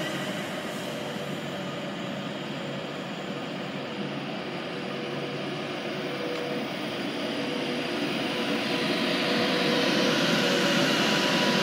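Alstom Class 390 Pendolino electric train moving past along the platform: a steady hum of traction equipment and fans with a held tone, growing gradually louder in the second half as the carriages go by.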